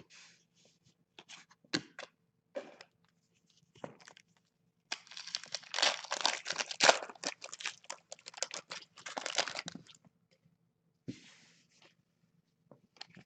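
A trading card pack's wrapper being torn open and crinkled: a dense crackling run of several seconds in the middle, with scattered small clicks and rustles before and after as the cards are handled.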